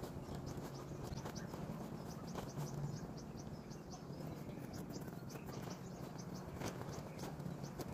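Outdoor ambience of a small creature's short, high chirp repeating about three times a second, over a steady low hum.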